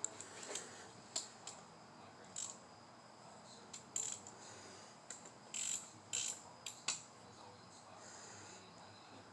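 Scattered short metallic clicks and clinks of hand tools and parts, about a dozen, bunched around the middle, over a faint steady trill of crickets.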